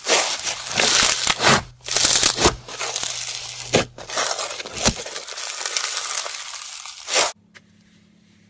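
Floam, slime packed with small foam beads, squeezed and kneaded by hand: a dense crunching and crackling that comes in waves and cuts off suddenly near the end.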